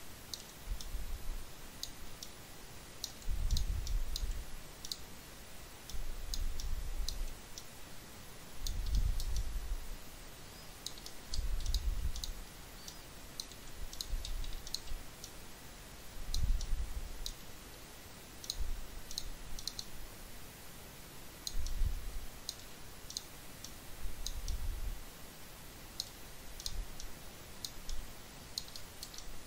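Scattered clicks of a computer mouse, single or in quick runs, as vertices are picked and dragged, with low muffled bumps every few seconds.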